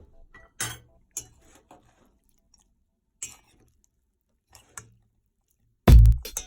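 A few scattered soft taps and clicks, then electronic music with a heavy beat starts near the end.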